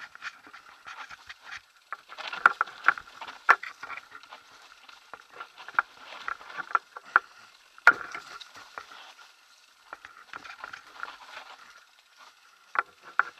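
Kona Satori 29-inch mountain bike riding down a rocky, leaf-strewn trail: a constant clatter of the bike jolting over stones and roots, tyres rustling through dry leaves, with a few hard knocks.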